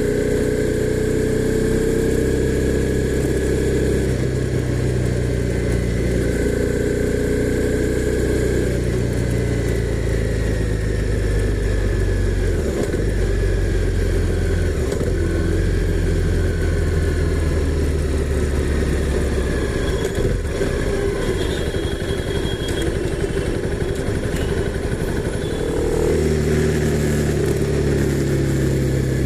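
Honda CB300R's single-cylinder engine running under way. Its pitch rises and falls, with several clear steps where the note drops or changes, as with gear changes.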